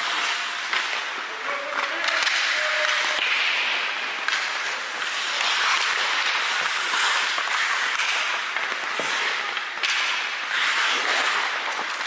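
Ice hockey play: skate blades scraping the ice in a hiss that swells and fades, with a few sharp clacks of sticks and puck.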